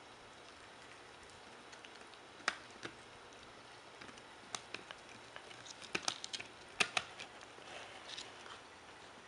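Shiba Inu puppy gnawing a rawhide bone: irregular sharp clicks and crunches of teeth on rawhide, coming thickest about six to seven seconds in.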